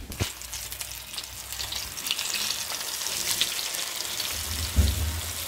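Flour-coated fish frying in hot oil in a black pan: sizzling and crackling that grows louder about two seconds in, as more floured pieces go into the oil. A dull knock comes near the end.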